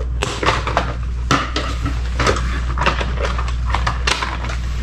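Cardboard box and packaging being opened and handled: a run of irregular scrapes, rustles and light knocks, over a steady low hum.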